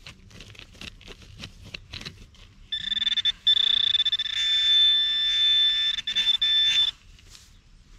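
Metal detector pinpointer probing a dig hole gives a short burst, then a loud, steady, high-pitched electronic tone for about three and a half seconds that cuts off sharply: the continuous alert of a metal target right at the probe tip. Before the tone, faint scratching of the probe and fingers in the grassy soil.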